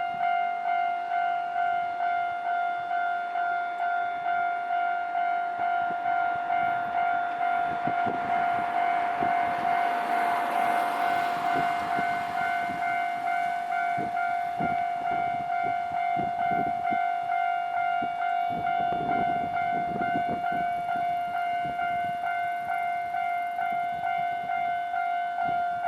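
Railway level-crossing warning bell ringing in a steady, even rhythm. A train passes partway through: a rushing rail noise swells and peaks about eleven seconds in, then comes a run of clacks from wheels over the rail joints.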